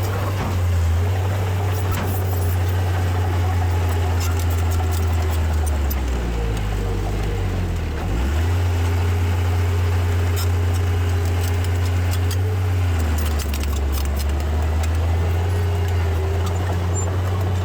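Heavy diesel engine of an earthmoving machine running steadily under load. Its pitch dips about six seconds in, climbs back near eight seconds and drops again around thirteen seconds. Light clicks and clanks sound on top.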